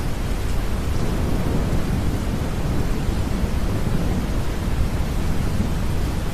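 Steady, deep brown noise mixed with rain and the low rumble of distant thunder.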